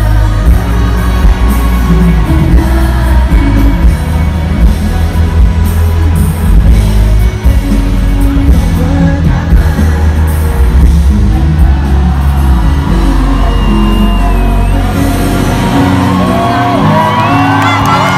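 Live pop music with heavy bass and singing, played loud through a concert sound system. Near the end, crowd whoops and cheers rise over it.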